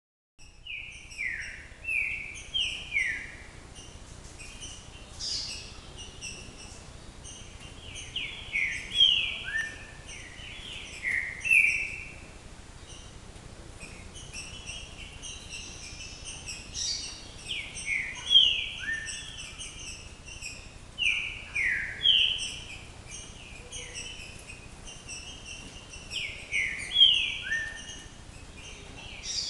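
Songbirds singing: phrases of several short, falling whistled notes, repeated every few seconds, over fainter, higher twittering.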